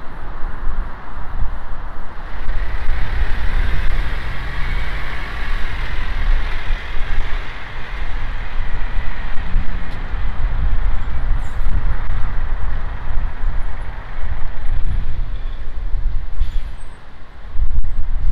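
Road traffic: a large vehicle passing with a rushing hiss that swells about two seconds in and fades after about ten seconds, over a steady low rumble.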